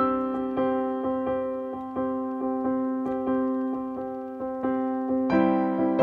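Background piano music: soft single notes that ring and fade, with a fuller, louder chord about five seconds in.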